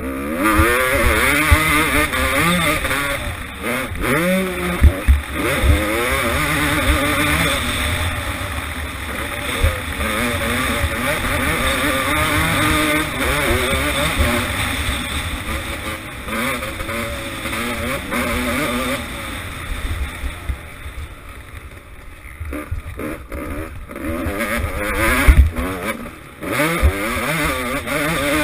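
Motocross bike engine revving up and easing off again and again as it is ridden round a dirt track, picked up by a helmet-mounted camera, with a few sharp knocks. The revs drop back about twenty seconds in, then climb again.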